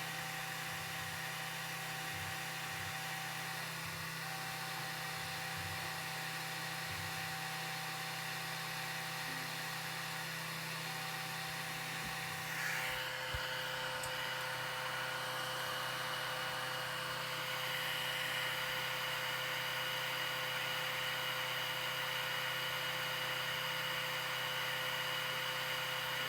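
Anycubic i3 Mega 3D printer running, its stepper motors whining in several steady tones that shift to a higher one about halfway through. The Bowden extruder is making noise and skipping, a fault the owner has just found.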